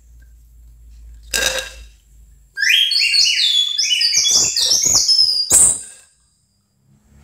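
A rapid run of high whistling chirps: many short, overlapping pitch glides, some rising and some falling, lasting about three seconds. A short burst comes about a second before them.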